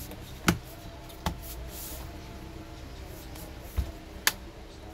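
Lenovo Slim 7 laptop's bottom cover being pressed down and snapped into its clips: two sharp clicks in the first second and a half, then a low thump and another click near the end as the laptop is picked up and turned over, over a steady background hum.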